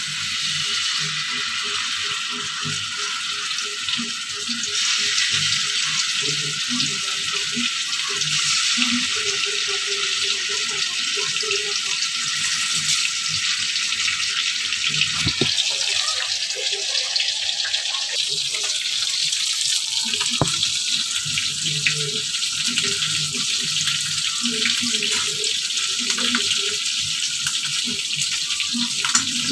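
Fish pieces shallow-frying in a little oil in a pan: a steady sizzle, with a couple of light clicks about halfway through.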